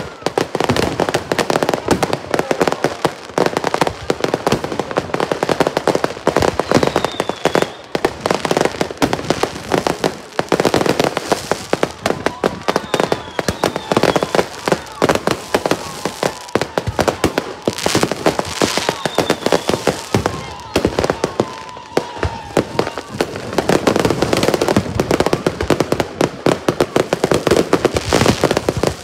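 Fireworks going off in a dense, continuous barrage: rapid sharp bangs, many each second, with no letup.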